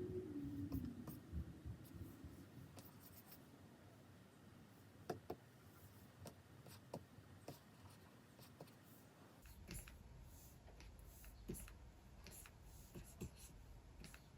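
Stylus nib scratching faintly across a Wacom Cintiq 24 Pro pen display in short drawing strokes, with scattered light taps of the pen on the screen.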